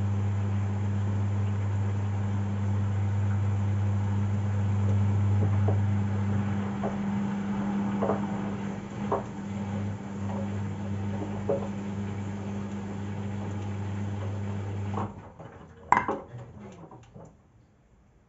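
Arctic front-loading washing machine running a 60° cottons programme into its final spin: a steady low hum with scattered soft knocks as the drum turns. The hum stops abruptly about fifteen seconds in, followed by a sharp clunk and a few smaller clicks.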